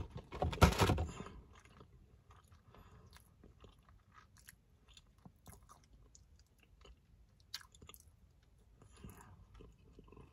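A person chewing a mouthful of sugar cookie with a crunchy strawberry-crumb topping, mouth closed. The chewing is loudest about a second in, then goes on as faint, scattered crunchy clicks.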